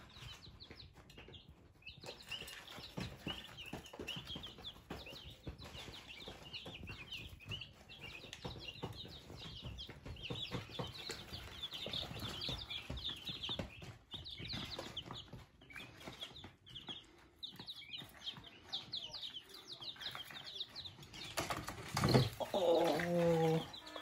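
A brood of five-day-old chicks peeping: many short, high cheeps overlapping throughout. Near the end there is a sudden loud knock, then a brief lower pitched sound.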